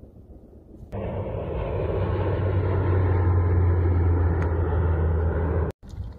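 A steady low engine drone with a strong low hum, building slightly over a few seconds; it starts suddenly about a second in and cuts off abruptly near the end.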